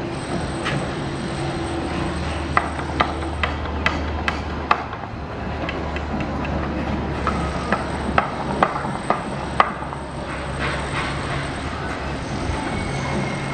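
Construction site noise: a steady low machine rumble with a run of sharp, irregular knocks, like hammering or metal clanks, from a few seconds in until near the end.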